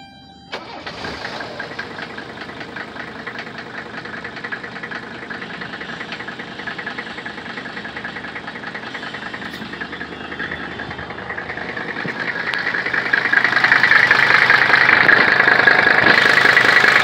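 Mercedes-Benz W126 300SD's five-cylinder turbodiesel starting about half a second in, then idling with a steady diesel clatter. It grows louder near the end as the microphone comes up to the open engine bay.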